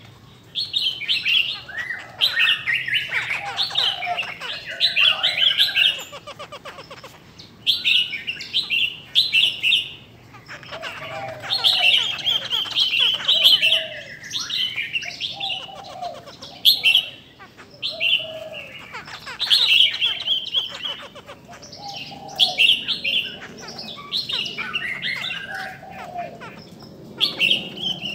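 Caged laughingthrushes, a hen among cock birds, calling and singing in loud bursts of whistled phrases with short pauses between.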